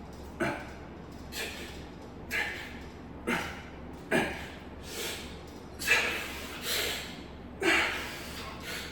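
A man's forceful breaths and grunts, one with each dip repetition, about once a second, as he pushes through a hard set of bodyweight dips.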